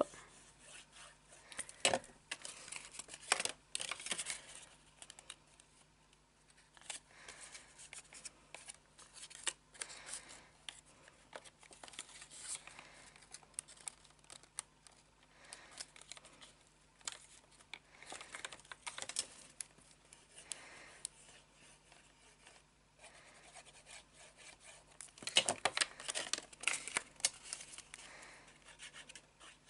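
Folded paper pieces being handled, pressed and glued together: intermittent rustling, rubbing and crinkling with a few sharp clicks, and a busier stretch of rustling near the end.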